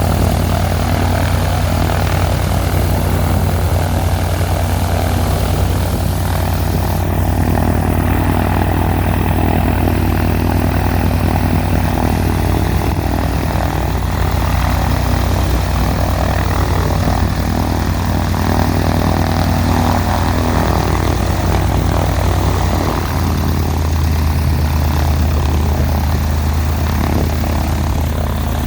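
Cessna 182's piston engine and propeller running steadily during a ground run-up, on a freshly installed exhaust system and new cylinder. About 23 seconds in, the engine's pitch shifts as the engine speed changes.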